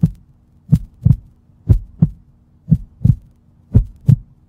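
Heartbeat sound effect: loud, deep double thumps in a lub-dub rhythm, about one pair a second, over a steady low hum.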